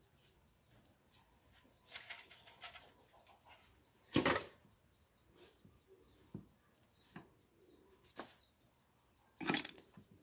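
Irregular rustling and scraping of hands working soil and roots in a plant pot while lifting a desert rose (adenium) to raise its root base, with a few small knocks; the loudest scrapes come about four seconds in and near the end.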